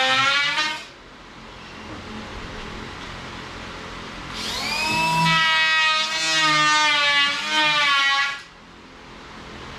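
Handheld circular saw cutting a plywood boat-floor board: the motor whine stops less than a second in, then the saw spins up again with a rising whine about four and a half seconds in, cuts for about four seconds, and stops.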